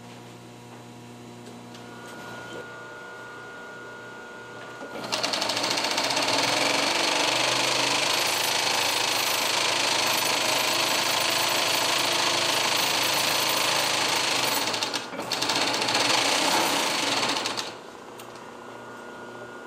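Industrial embroidery machine running at speed with a loud, rapid, dense clatter that starts about five seconds in, falters briefly near the fifteen-second mark and stops about two seconds before the end. Before and after it runs, a steady motor hum.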